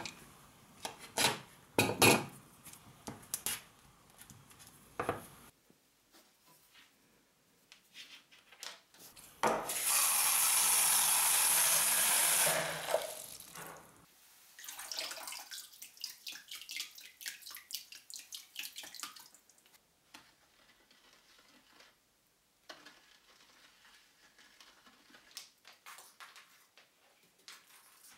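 Electrical tape being pressed and handled on a steel plate, with sharp clicks in the first few seconds. About ten seconds in, water pours steadily into a plastic tub for about three seconds, filling the saltwater bath, followed by fainter clicks and handling.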